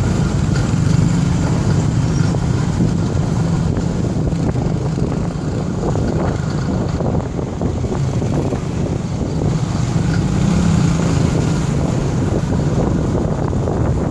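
Motorbike engine running steadily in dense road traffic: a continuous low rumble mixed with the noise of surrounding motorbikes and cars.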